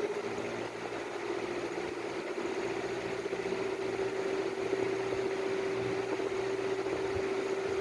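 Steady machine hum holding one constant tone, over a faint even hiss.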